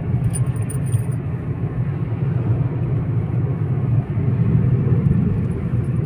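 Steady engine and road noise inside a Hyundai car's cabin while driving along a highway: a low, even rumble with a fainter tyre hiss above it.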